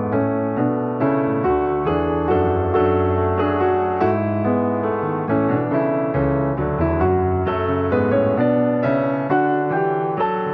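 Slow piano music, notes and chords struck one after another; no rain is heard beneath it.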